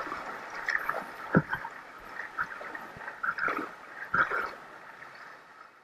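Water splashing and gurgling against a whitewater kayak's hull as the paddler's hands stroke the water beside the boat, with a few irregular sharper splashes. The sound dies away near the end.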